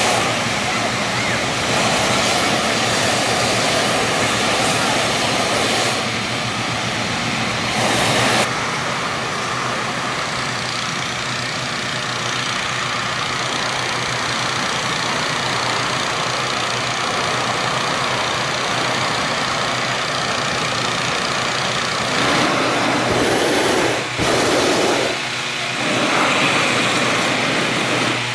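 Hot air balloon inflation: petrol-engined inflator fans running steadily, with propane balloon burners firing in loud stretches of full, hissing noise.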